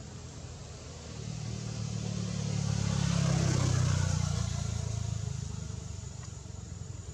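A motor vehicle passing by: its engine hum and road noise build up from about a second in, are loudest around three to four seconds, then fade away.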